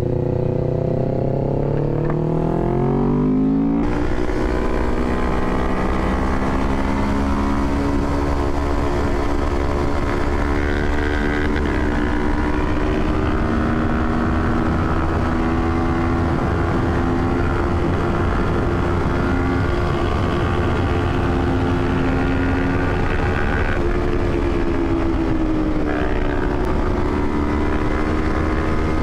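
Parallel-twin sport motorcycle engine under way, rising in revs for the first few seconds, then holding a fairly steady note. Wind rush on the microphone comes in suddenly about four seconds in.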